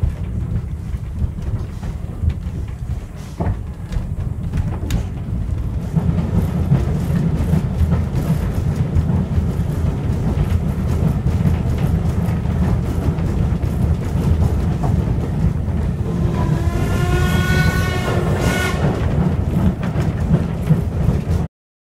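Heritage railway carriage running along the line, heard from inside: a steady low rumble with a few sharp clicks over the rail joints. Near the end the steam locomotive's whistle sounds for about two seconds, its pitch bending.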